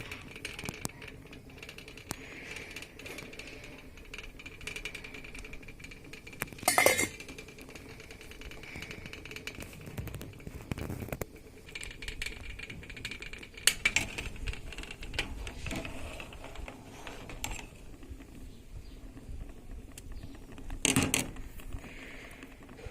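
Scattered clinks and clatter of household objects being handled, with three louder knocks about seven, fourteen and twenty-one seconds in.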